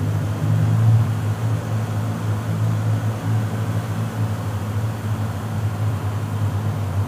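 A car driving along a road: a steady low engine and road-noise drone, slightly louder about a second in.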